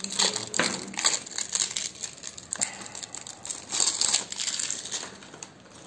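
Clear plastic shrink wrap crinkling and tearing as it is peeled off a stack of ceramic poker chips, in irregular crackles that thin out near the end.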